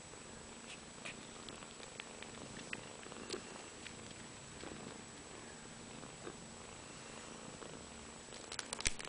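Steady purring from a nursing cat, with scattered small clicks and a quick cluster of louder clicks near the end.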